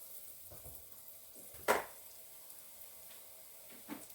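Hush puppy batter frying in a pot of hot oil, a faint steady sizzle, with one sharp knock about a second and a half in and a couple of softer ones as spoonfuls of batter are pushed into the pot.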